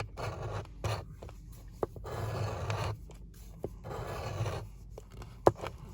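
Coin scratching the coating off a scratch-off lottery ticket: several separate passes of scraping, with a few sharp clicks, the sharpest about five and a half seconds in.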